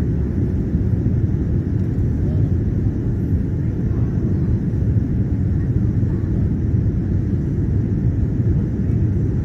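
Steady low rumble of an airliner cabin in the climb after takeoff: the jet engines and the rush of air heard from inside the cabin.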